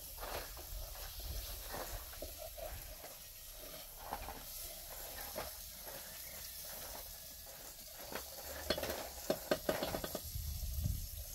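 Food frying in a pan with a steady sizzle as it is stirred, the utensil clicking and scraping against the pan. The clicks come in a quicker, sharper run a little before the end.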